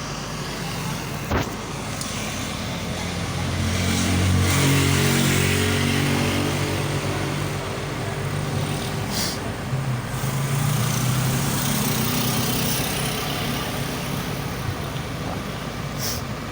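Vehicle engine running, swelling and rising in pitch a few seconds in and again about ten seconds in, with a sharp click about a second in.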